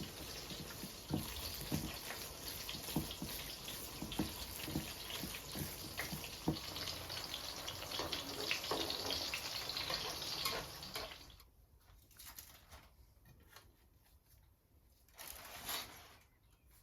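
Water running from a kitchen tap, with light clinks and knocks of things being rinsed under it. The flow is shut off about two-thirds of the way through, leaving a few soft knocks and one short splash or rustle near the end.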